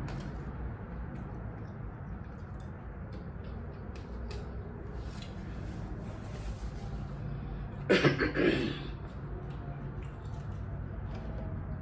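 A woman gives a short, rough cough to clear her throat about two-thirds of the way in, over a steady low fan hum and small clicks of eating.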